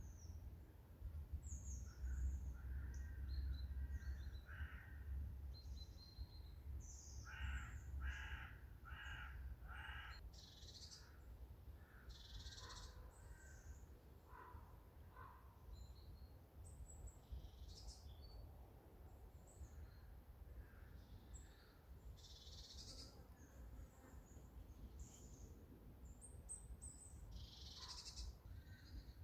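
Forest birds calling: scattered high, short chirps throughout, and a run of four loud calls in quick succession about eight seconds in, over a faint, steady low rumble.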